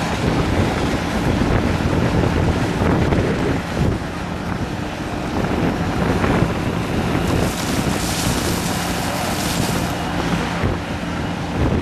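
Diesel engines of a ride-on tandem roller and a mini excavator running steadily, with heavy wind buffeting the microphone.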